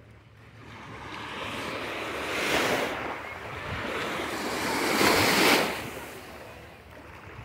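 Small sea waves breaking and washing up a sandy beach, with two surges that swell and fade, the louder one about five seconds in.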